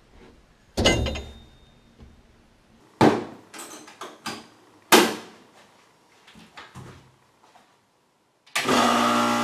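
Three sharp clunks about two seconds apart, with a few lighter knocks between, from things being handled and set down in a workshop. Background music comes in near the end.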